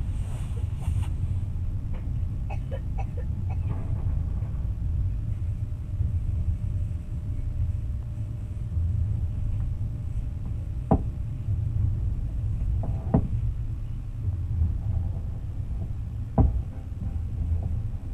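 Train running along the rails, heard from inside the carriage: a steady low rumble with a few sharp knocks in the second half.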